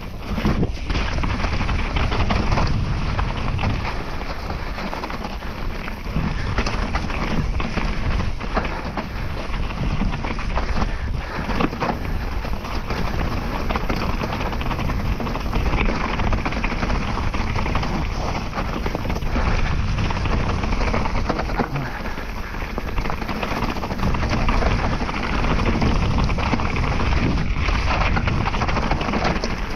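Wind rushing over the microphone as a Trek Remedy 7 full-suspension mountain bike is ridden down a rough trail, with tyre noise and frequent knocks and rattles from the bike over bumps.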